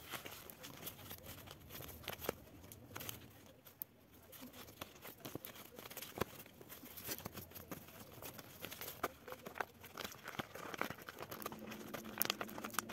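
Faint paper rustling with light taps and clicks as paper savings envelopes are handled and sorted through.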